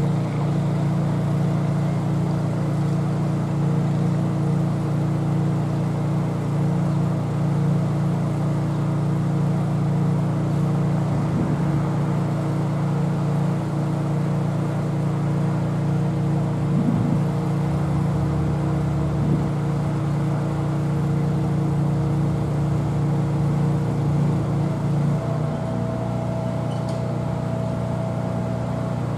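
Heavy machinery's diesel engine running steadily with a constant hum, its note shifting to a slightly different pitch pattern about 25 seconds in.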